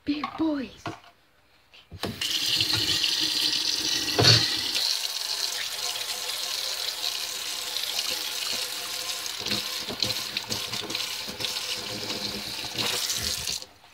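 Water running from a tap, a steady rush that starts suddenly about two seconds in and cuts off shortly before the end, with a single knock about four seconds in.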